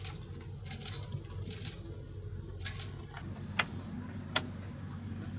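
A series of short, light clicks and clinks of things being handled in a camper van's kitchen, the two sharpest and loudest a little after the middle and near the end, over a low steady rumble.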